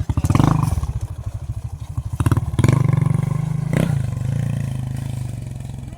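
Small petrol engine running with a few short revs, then fading gradually over the last few seconds.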